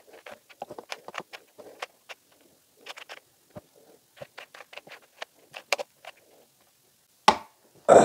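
Cheap Dollar Tree Rubik's Cube being turned by hand: quick, irregular clicks and scrapes of the plastic layers. It ends with one loud knock about seven seconds in as the cube is set down on the table.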